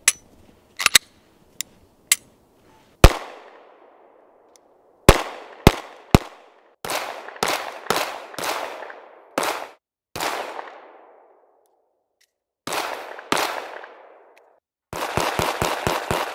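Glock-pattern pistol: a few light handling clicks, then a series of pistol shots, singles and quick pairs, each with an echoing tail. It ends in a fast string of about six shots.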